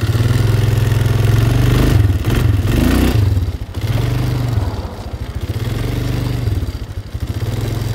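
Four-wheeler (ATV) engine pulling away from idle and running under throttle, its speed rising and falling a few times as the throttle is opened and eased off.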